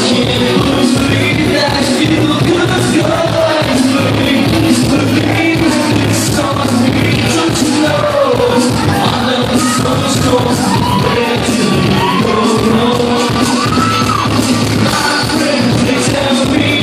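Live freestyle dance-pop song played loud through the PA, with a male singer singing into a handheld microphone over a steady beat, and the audience yelling along.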